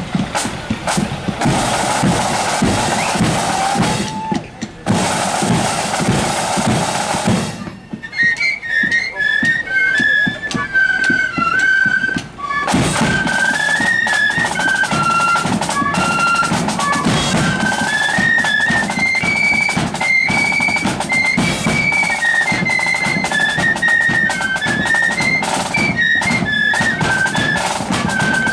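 Marching flute band playing. Snare and bass drums play alone for about the first eight seconds, then the flutes come in with a tune over the drums.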